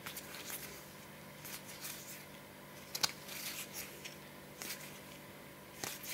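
Playing cards being handled, with faint rustles and light taps of card on card, the sharpest a click about three seconds in. A low steady hum sits under it.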